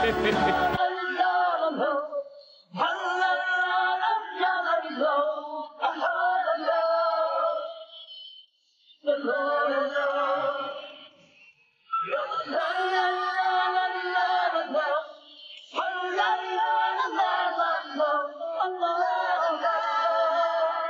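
Ending theme song of a TV drama: a voice singing phrases a few seconds long, with short breaks about eight and twelve seconds in. In the first second, a burst of noisy scene sound cuts off suddenly.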